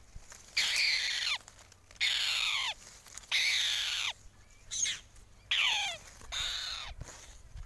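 Hawk chicks giving harsh screeches that fall steeply in pitch, about six calls spaced roughly a second and a half apart.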